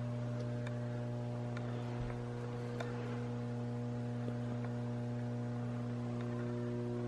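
Steady low electrical hum of the mains kind, with a faint buzz of higher overtones, and a few faint clicks.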